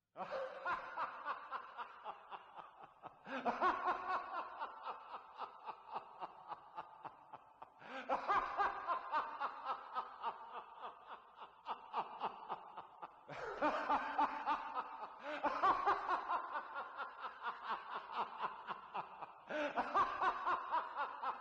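Laughter in about six bouts of quick, pulsing 'ha-ha' sounds, each bout starting loud and dying away.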